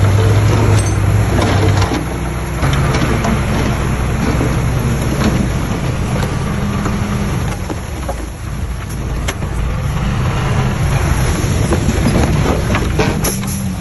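Diesel engine of a heavy earth-moving machine running, its tone and level dropping about two seconds in, with a few scattered knocks and clanks.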